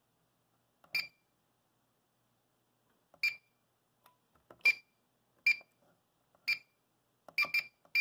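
Potter PFC-6006 fire alarm panel keypad giving short, high-pitched key-press beeps. There are about eight single beeps at uneven intervals, two in quick succession near the end, as its buttons are pressed.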